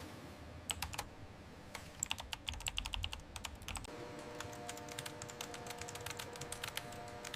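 Faint typing on a computer keyboard: irregular, quick key clicks. A faint steady hum of a few tones joins about four seconds in.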